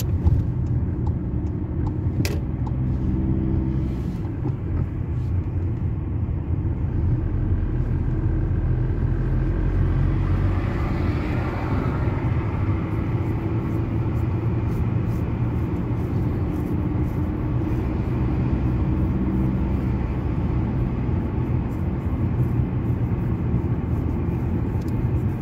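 Car engine and tyre noise heard from inside the cabin while driving steadily along a road, with a single sharp click about two seconds in and a brief swell of road noise around ten seconds in.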